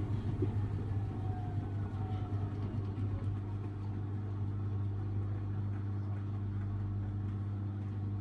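Samsung Ecobubble washing machine with a digital inverter motor spinning its balanced load on an intermediate spin: a steady, quiet low hum with a few steady tones above it.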